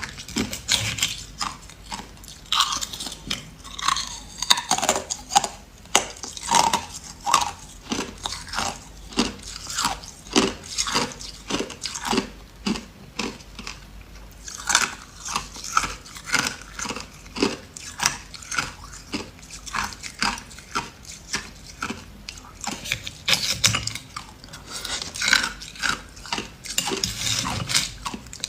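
A person biting and chewing ice: an irregular, unbroken run of sharp crunches and cracks, with loud bites every second or so.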